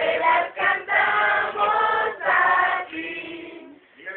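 A group of mixed voices, adults and children, singing together in unison at a birthday party, typical of a birthday song; a held note fades out near the end.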